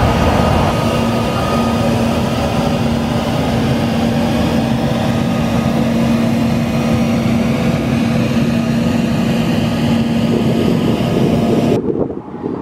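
Twin rear-mounted jet engines of a large business jet running steadily as it taxis: a jet whine over a low, even hum. It breaks off abruptly near the end, leaving a quieter, duller rumble.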